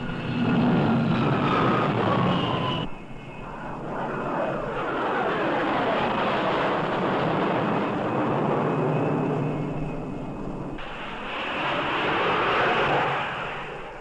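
Carrier jet aircraft engines on approach and flying past: a falling whine over the first few seconds, then loud jet noise that swells and sweeps as the aircraft pass. The sound cuts off abruptly twice, about three seconds in and again near eleven seconds, and fades near the end.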